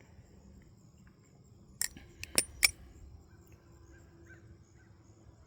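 Four sharp metallic clicks within under a second, about two seconds in: a New Era Sunshine balisong trainer being handled, its aluminum handles and latch knocking together.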